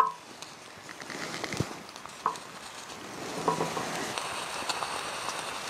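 Water heating in a steel canteen cup on a small camp stove: a faint steady sizzle with a few scattered ticks, getting a little louder in the second half, after a sharp click at the very start.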